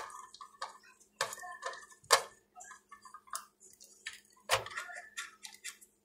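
Scattered light metallic clicks and taps as a screwdriver works the screws of a laptop's copper heatsink and the heatsink is handled, the sharpest click about two seconds in.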